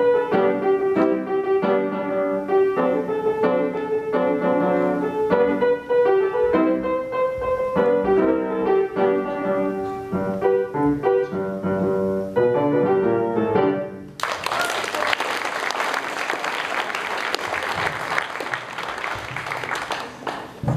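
A piano plays a tune of separate notes for about fourteen seconds, then stops and an audience applauds until near the end.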